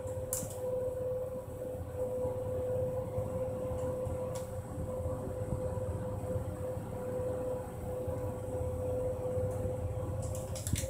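Hitachi rope-traction passenger elevator car travelling upward: a steady hum with a constant mid-pitched tone over a low rumble, and a few faint clicks near the end.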